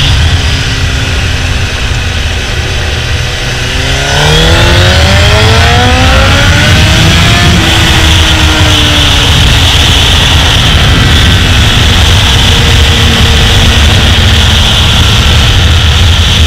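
Honda sport bike engine heard from on board with wind rushing over the microphone. For the first few seconds it runs off the throttle, the revs sinking. About four seconds in the throttle opens and the revs climb steeply, then drop at an upshift a few seconds later, and the bike pulls on hard in the next gear.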